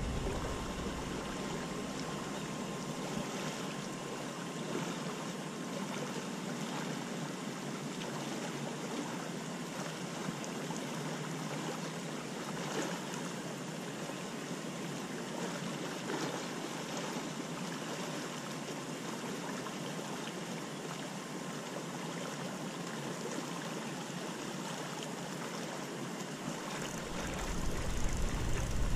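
Steady, even rush of flowing river water. Near the end a louder low rumble joins in.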